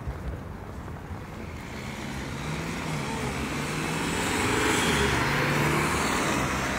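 A road vehicle passing by on a street, its noise and engine hum swelling louder over a few seconds and easing off near the end.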